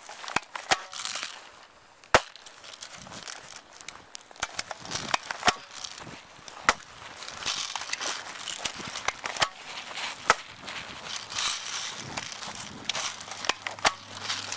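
Airsoft guns firing: a dozen or more sharp pops and BB strikes at irregular intervals, the loudest about two seconds in and again about ten seconds in, with rustling of movement between them.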